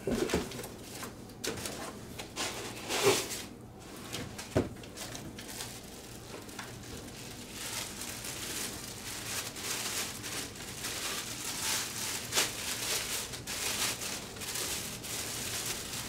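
Packaging being handled and pulled apart by hand: crinkling and rustling with several sharp knocks in the first few seconds, then a steadier, hissier rustle through the second half.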